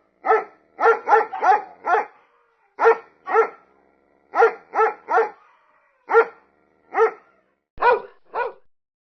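A dog barking repeatedly: about fourteen short barks in quick runs of two to four, with brief pauses between runs, stopping shortly before the end.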